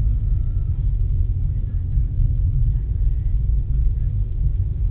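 A car driving along a narrow lane, heard from inside the cabin: a steady low rumble of engine and tyres.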